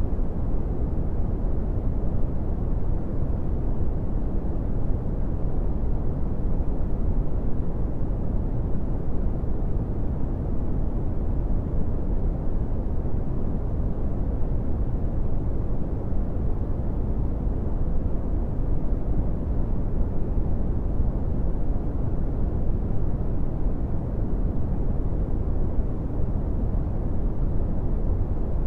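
Steady brown noise: an even, deep rumbling hiss with most of its energy in the low end and little above about 1 kHz, unchanging throughout.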